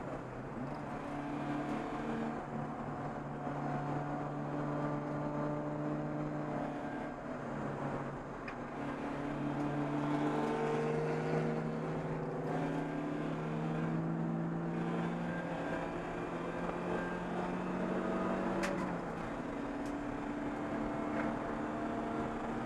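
Race car engine heard from inside the caged cockpit, running hard with its pitch climbing slowly, then dropping near the end just after a sharp click.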